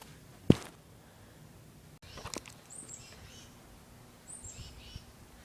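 A single sharp click, then outdoor ambience with a few short, high, falling bird chirps in two small groups.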